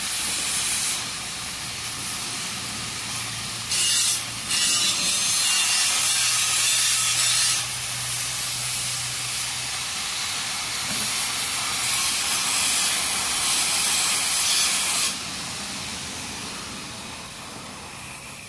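Steel being cut and ground for a seat-frame repair: a loud, rough hiss that grows louder for a few seconds at a time, about four seconds in and again about twelve seconds in, then eases off near the end.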